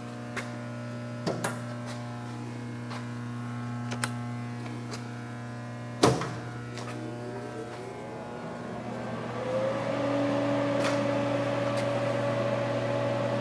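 Steady electrical hum with scattered light clicks and one sharp click about six seconds in. After the click, the lathe's inverter-fed variable-speed spindle drive spins up with a rising whine and settles into a steady whine for the last few seconds.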